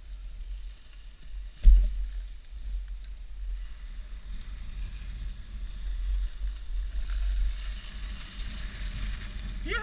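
Wind buffeting a helmet-mounted action camera's microphone while skiing downhill, with skis hissing and scraping over packed snow, growing louder after about four seconds. A single sharp thump about two seconds in.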